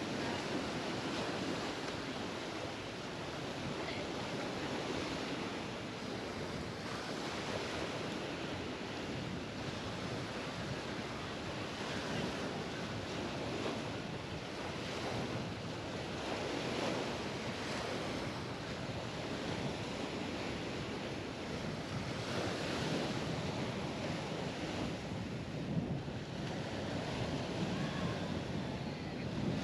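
Mediterranean waves washing onto the beach, swelling and easing every few seconds, with wind rumbling on the microphone.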